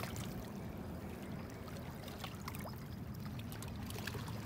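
River water lapping and trickling against the stones of the bank, with scattered faint ticks over a steady low rumble.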